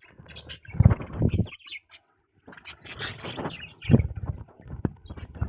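Pet budgerigars chirping and chattering in quick, irregular high notes. Louder low buzzy bursts come about a second in and again near four seconds.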